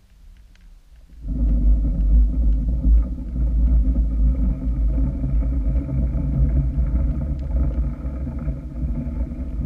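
Boat engine heard underwater: a loud, steady low rumble with a fixed pitch, starting suddenly about a second in.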